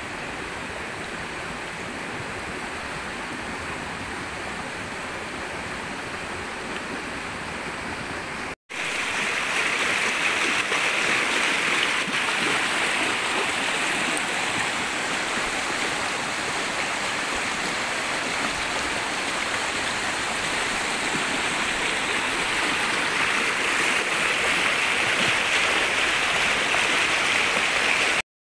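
Steady rush of flowing river water. It drops out for an instant about nine seconds in, comes back louder, and cuts off just before the end.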